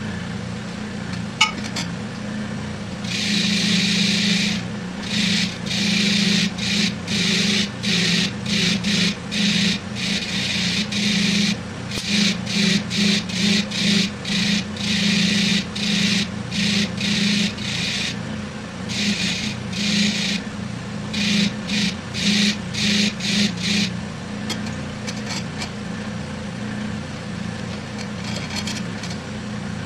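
Bench grinder motor running steadily with a wire wheel, as bolts are pressed against the spinning wire brush again and again in short scratchy bursts to strip the rust. The bursts come thick from about three seconds in until past twenty seconds; after that the motor mostly runs on alone.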